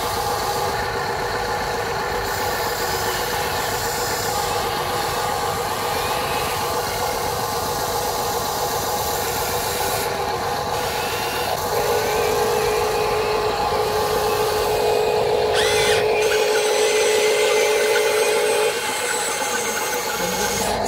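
Electric gear motors of a Huina 580 metal RC excavator whining steadily as it swings and works its arm and bucket. The whine grows louder and stronger from about halfway through until a couple of seconds before the end, while the excavator drives forward on its tracks.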